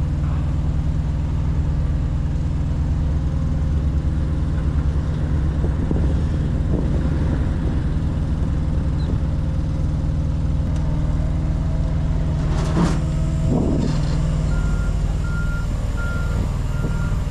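A heavy diesel engine idles steadily, with a short burst of noise about three-quarters of the way through. Near the end a forklift's reversing alarm starts beeping, about two beeps a second.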